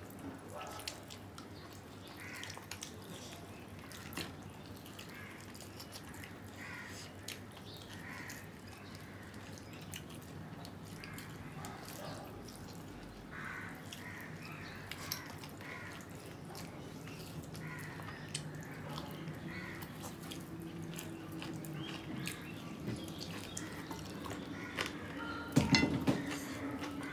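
Close-up eating sounds: fingers squishing and mixing rice with curry and mouths chewing, a steady stream of small wet clicks and smacks. A brief louder burst of clicks comes about a second before the end, as a piece of chicken is bitten into.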